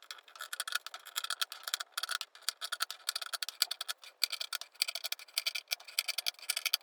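Scissors snipping through T-shirt fabric in a rapid, continuous run of short crisp clicks while fringe is cut.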